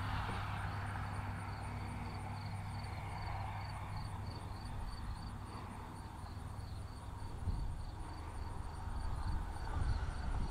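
R/C model airplane flying high and far off, its motor a faint steady drone, over a low rumble. Insects chirp in a steady, even pulse throughout.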